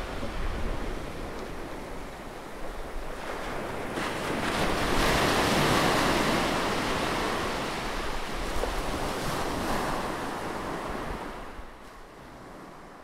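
Ocean waves surging and washing, swelling a few seconds in and fading away near the end.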